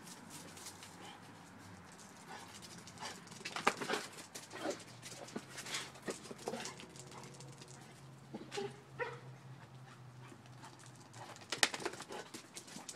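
Pet dog making quiet, intermittent sounds: scattered short clicks and a few brief, faint whines.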